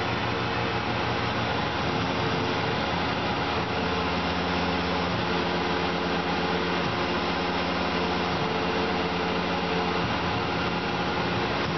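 Tormach PCNC 1100 CNC mill running a chamfering tool that breaks the edges of black Ertalon plastic parts: a steady machine hum and whine. The lowest tone shifts every second or two as the axes move.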